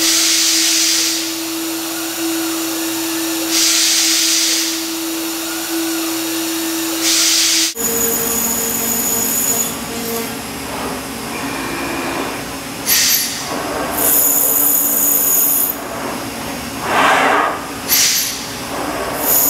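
CNC router machine sounds: a steady spindle tone with three hissing bursts, then, after a change about eight seconds in, a five-axis router head milling Nomex honeycomb. Its spindle whines steadily, and the cutter makes several louder rushing bursts as it works through the material.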